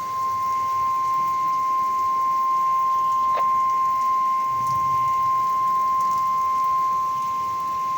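NOAA Weather Radio warning alarm tone: a single steady, loud high tone of about 1050 Hz that cuts off suddenly. It is the alert that comes before a newly issued tornado warning is read out.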